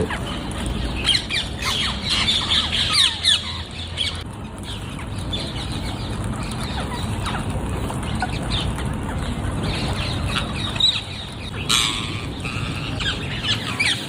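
Parrots squawking: many short, sharp, down-sweeping calls in flurries, busiest in the first few seconds and again near the end, over a steady low background noise.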